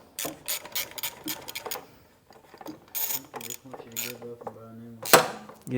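Ratchet wrench clicking in quick runs as bolts are turned, with a single louder clack about five seconds in.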